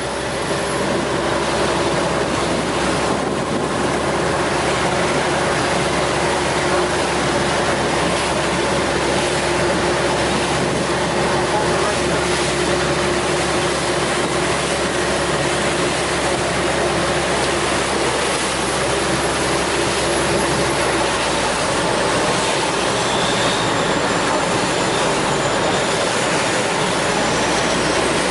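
A passenger boat's engine running steadily at speed, heard from on board, with the rush and splash of river water along the hull.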